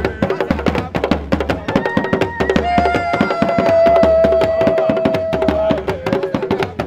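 Several shoulder-slung drums beaten fast with curved sticks in a dense, steady rhythm. In the middle, a voice holds one long high note for about three seconds over the drumming.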